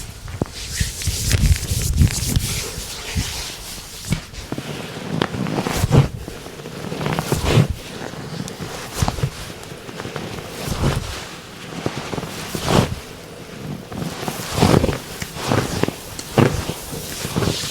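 Massage therapist's hands working on bare skin in a deep tissue massage: steady rubbing and swishing, broken by an irregular thump or slap every second or two.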